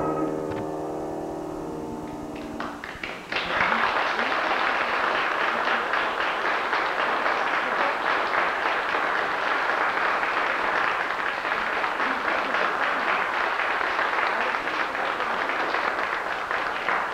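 The last chord of the piano and song ringing out and fading, then audience applause breaking out about three seconds in and going on steadily.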